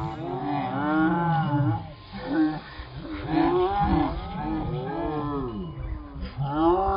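A string of long, moo-like calls, each rising and then falling in pitch, several overlapping one another.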